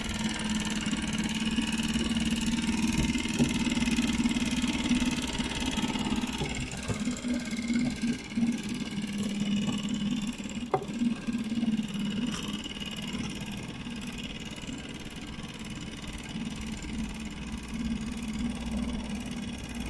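Mariner 2.5 hp four-stroke petrol outboard idling in neutral: a steady engine hum that settles a little quieter about halfway through.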